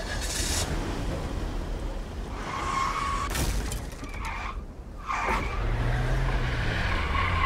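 A car pulling up: engine hum and tyre noise over a low, steady rumble, with short high squeals, from a film soundtrack. About two-thirds of the way through, the engine note rises and grows louder as the car comes closer.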